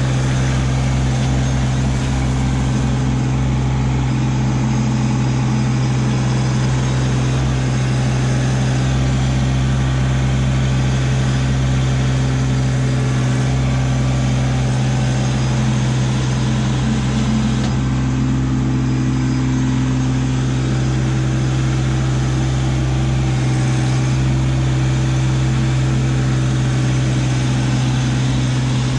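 Kubota LX2610 compact tractor's three-cylinder diesel engine running steadily close by, a low even hum.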